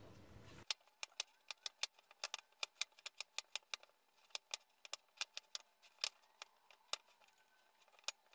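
Hands kneading sticky date paste in a ceramic bowl: a quick, irregular run of small sharp clicks and smacks as the paste is pressed and pulled off the fingers, about three to five a second.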